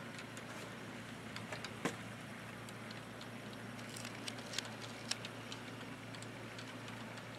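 HO scale model freight train rolling along the track: light, irregular clicks of the wheels over the rail joints, one sharper click about two seconds in and a small cluster around four to five seconds in, over a steady low hum. The Bachmann 70-ton switcher's own motor is not heard, as it runs near silent after a factory repair.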